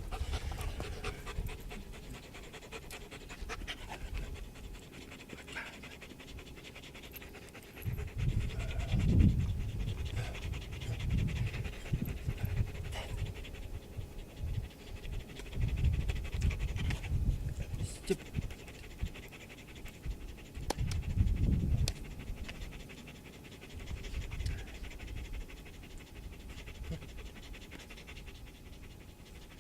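Dog panting steadily and quickly, with several loud low rumbles between about 8 and 22 seconds in.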